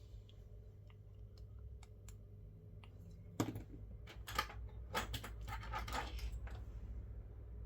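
Light clicks and taps of small tools and phone parts being handled during a smartphone teardown, sparse at first and busier from about three and a half seconds in, over a low steady hum.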